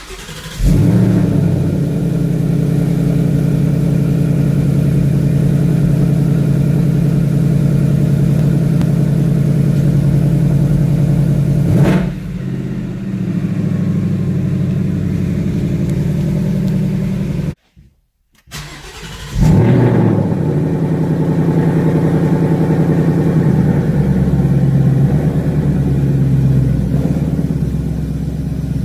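2018 Ford Mustang GT's 5.0-litre V8 started twice, each time catching with a sharp flare and then settling into a steady fast idle. The first settles lower about 12 s in. The exhaust is the active exhaust, heard with an H-pipe resonator delete and in stock form.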